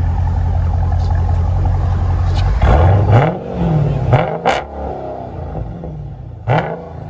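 Exhaust of a 2015 Dodge Challenger Scat Pack's 6.4-litre Hemi V8, running through Vibrant glass-pack mufflers on a factory X-pipe with the rear mufflers removed. It idles steadily, is revved sharply about two and a half seconds in, then blipped twice more, the revs falling back toward idle between blips.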